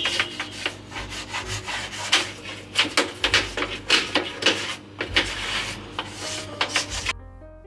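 Quick, repeated scrubbing and scraping strokes against a washing machine part as built-up dirt is cleaned off. Soft piano music comes in near the end.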